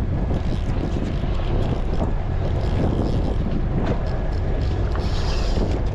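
Steady low rumble of wind buffeting the microphone on a fishing boat at sea, with a brief hiss about five seconds in.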